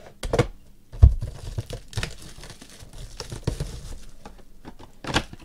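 Plastic shrink-wrap crinkling and tearing as it is worked off a box of trading cards, with irregular crackles and handling knocks, the loudest a sharp knock about a second in.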